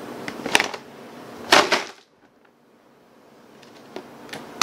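A large plastic water bottle handled and knocked about: a few sharp plastic clicks and crackles, the loudest about one and a half seconds in, with smaller clicks near the end.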